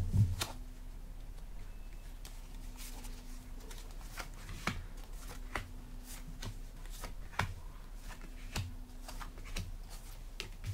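Tarot cards being handled and dealt one at a time onto a cloth-covered table: soft, scattered taps and slides of cards, with a heavier knock right at the start.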